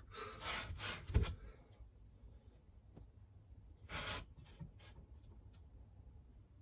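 Short rubbing and scraping handling noises, with a sharp knock about a second in and another scrape about four seconds in, then a few faint ticks.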